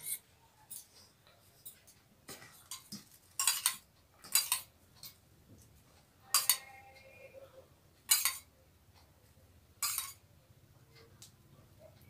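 Stainless steel spoon and steel bowls and plates clinking: about six sharp clinks a second or two apart, one ringing briefly, with lighter ticks in between.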